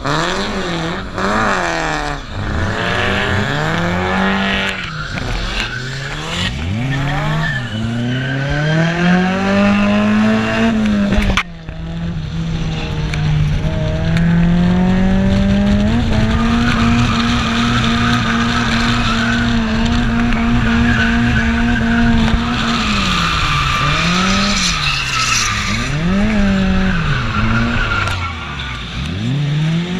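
Drift car's engine heard from on board, revving up and dropping again and again through a drift run. It holds steady at high revs for several seconds in the middle, while the tyres squeal as the car slides sideways. There is a brief break in the sound about a third of the way in.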